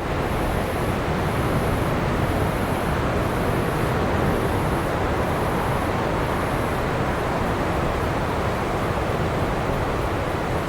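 Ocean surf on a beach: a steady, unbroken rush of breaking waves. A faint high-pitched pulsing, a little over once a second, runs through the first two-thirds.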